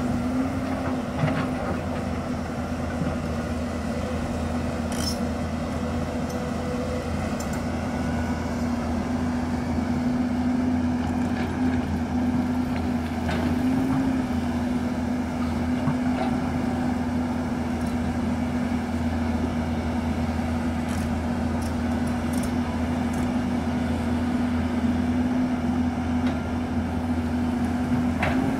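Hyundai crawler excavator's diesel engine running steadily under load, with a steady hydraulic whine over its deep drone. A few faint knocks come from the bucket striking soil and rock.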